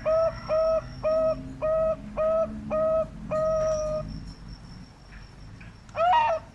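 Dove cooing: a fast run of short, evenly spaced hooting notes that slows into one long held note, then after a pause a brief, rougher call about six seconds in. A faint steady high tone runs behind.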